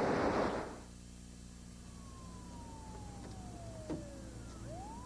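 A rush of water noise cuts off under a second in; then an ambulance siren wails, its pitch sliding slowly down and then sweeping back up near the end, over a low steady engine hum.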